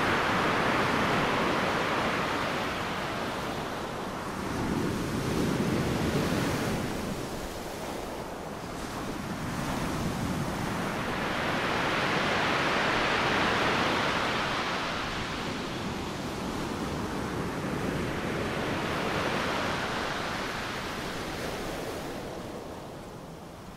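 Ocean waves washing in, a hiss of surf that swells and recedes every six or seven seconds.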